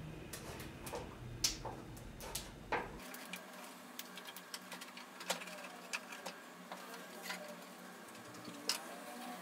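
Scattered light clicks and taps of hand-building work on a clay pot, a few a second with some sharper ones, the small handling sounds of fingers and tools on leather-hard clay and a wooden banding wheel.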